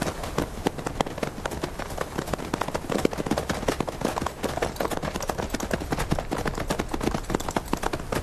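Hoofbeats of several galloping horses: a fast, dense, uneven clatter that keeps up without a break.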